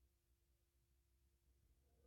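Near silence: only a faint low hum, with no gunshots.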